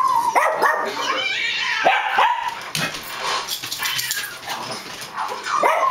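Small white dog barking and yipping at dogs on the television: a short high whine, then sharp barks in quick pairs, and another burst near the end.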